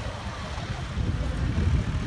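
John Deere tractor's diesel engine working hard under load as it drags a weight-transfer pulling sledge, heard as a low rumble mixed with wind on the microphone; it gets louder about a second in.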